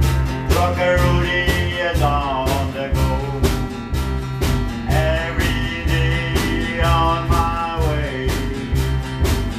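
Background country-style music with guitar and a steady beat.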